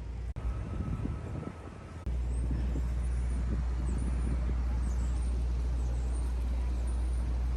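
Outdoor city ambience: a steady low rumble of road traffic, with faint short high chirps over it. The sound changes abruptly twice early on, as if the recording is cut, and the rumble is louder from about two seconds in.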